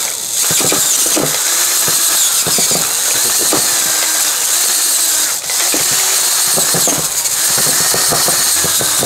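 Bosch cordless drill spinning a large bit that cuts away aluminium around a bolt hole in a cylinder head, a steady loud squealing whine with a short dip about five and a half seconds in.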